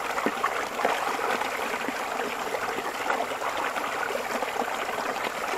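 Spring-fed brook running steadily, a close, even babble of trickling water.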